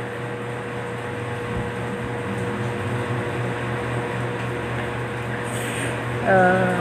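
A steady mechanical hum with an even hiss behind it, unchanging throughout. A short voice sound breaks in near the end.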